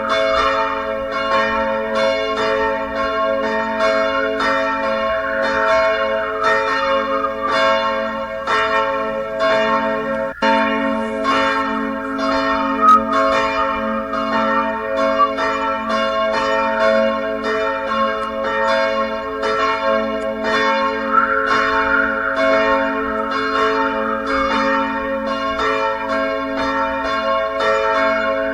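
Church bells ringing in a continuous peal, struck about twice a second, the strikes overlapping over a sustained hum. There is a momentary dropout about ten seconds in.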